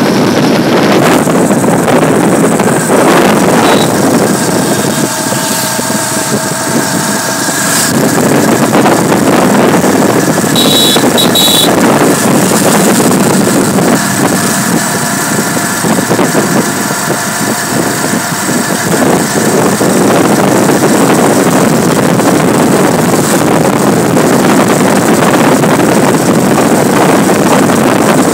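Wind rushing over the microphone and the engine of a moving vehicle running steadily along a paved road, a loud continuous rush. The engine's hum comes through more clearly twice, and a brief high-pitched tone sounds about eleven seconds in.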